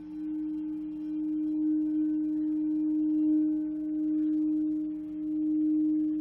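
A sustained ringing tone of meditation drone music, holding one pitch and slowly swelling and fading about every three seconds.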